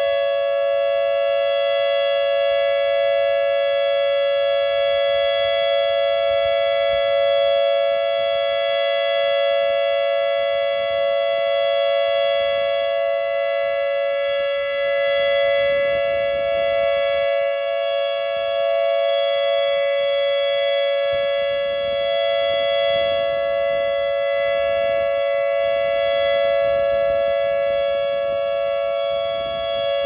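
Federal Signal Modulator 8032B electronic outdoor warning siren sounding its 'ThunderMod' alert tone during a three-minute test: a loud, steady chord of several pitches that does not rise or fall.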